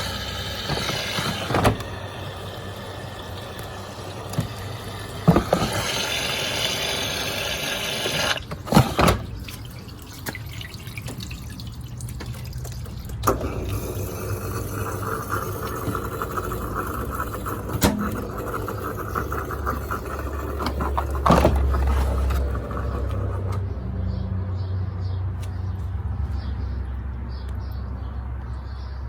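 Miele Meteor 1000 Novotronic washing machine taking in and sloshing water, with about six sharp knocks spread through, and a low hum growing stronger near the end.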